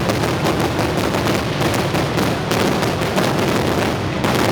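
Fireworks display: a dense, continuous barrage of rapid overlapping bangs with no pauses between them.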